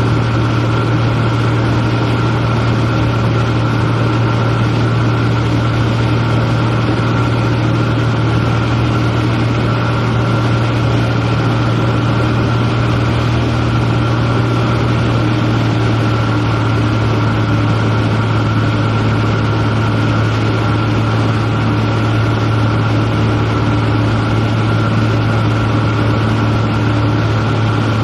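Piston engine and propeller of a single-engine light airplane running steadily in flight, heard inside the cabin as a loud, even drone with a strong low hum.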